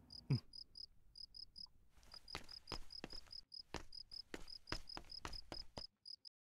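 Crickets chirping, a short high chirp repeated a few times a second, with footsteps on a stone path from about two seconds in. Everything cuts off shortly before the end.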